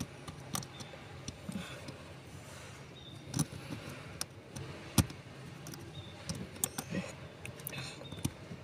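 Scattered light clicks and taps over a faint steady hiss, the sharpest click about five seconds in.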